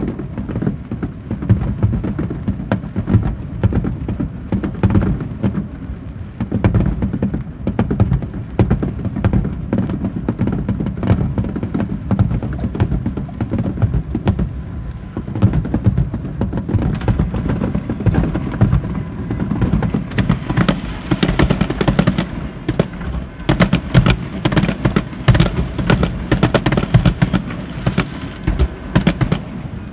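Fireworks display: aerial shells bursting in a continuous barrage of booms and crackling reports, growing denser and sharper from about halfway through.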